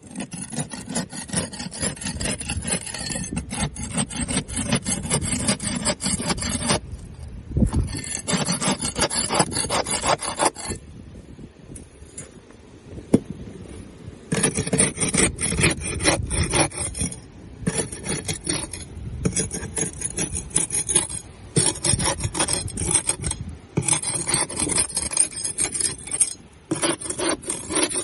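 Barnacles being scraped off a boat hull: a rapid, gritty rasping full of small cracks, in runs of several seconds broken by short pauses, with the longest pause near the middle.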